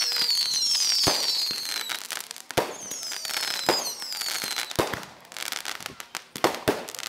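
Aerial fireworks launching and bursting: sharp bangs about once a second, with several whistles sliding down in pitch during the first half. A patter of quick crackling pops comes near the end.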